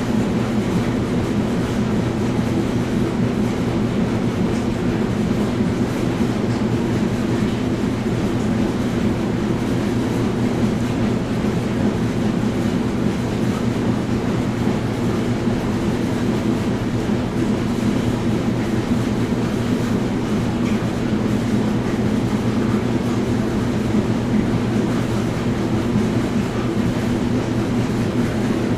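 Washing machine running steadily: a continuous low rumble with a steady hum beneath it.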